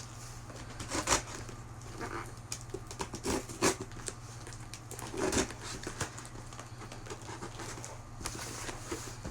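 Scattered knocks, clicks and rustles of a shipping box being handled and opened, a few sharper knocks standing out.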